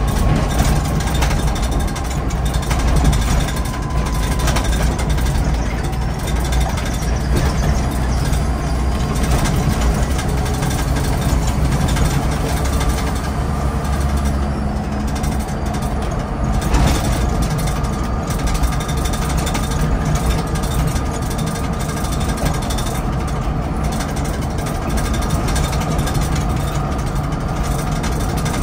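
Engine of a Scania N94UD OmniDekka double-decker bus running, heard from on board as a steady low drone that is heavier in the first half and eases a little later on.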